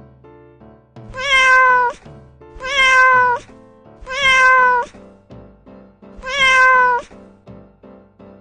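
A cat meowing four times, each meow about a second long and slightly falling in pitch, over background piano music.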